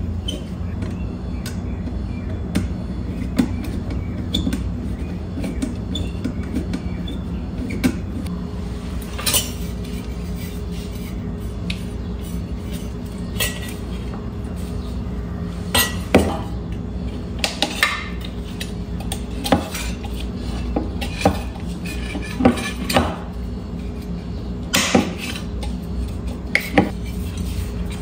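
Scattered clicks, clinks and knocks of metal and plastic parts as a small electric fan motor is taken apart by hand. The handling noises come more often and louder in the second half, over a steady low hum.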